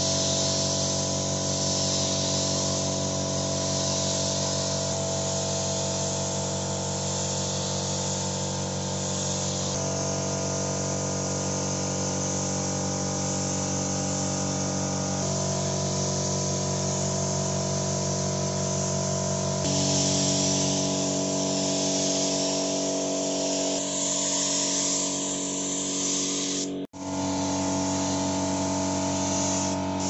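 Gravity-feed air spray gun hissing steadily as it sprays paint, over a drone of held low tones that change pitch every few seconds. The sound cuts out for an instant near the end.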